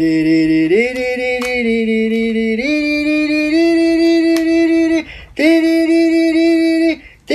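A voice singing long held notes, gliding down at the start and then stepping up in pitch a few times, breaking off briefly about five seconds in before holding one more long note.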